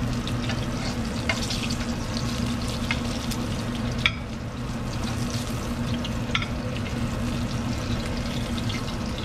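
Breaded squirrel pieces frying slowly in oil in a cast iron skillet at low heat, a steady sizzle. Metal tongs click against the pan and plate now and then as pieces are lifted out, the sharpest click about four seconds in, over a steady low hum.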